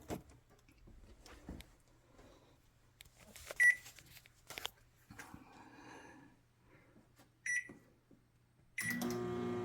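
Samsung microwave's control panel beeping twice as buttons are pressed, then a third beep about nine seconds in as the oven starts running with a steady hum. It runs with its faulty top door switch bypassed by a wire jumper.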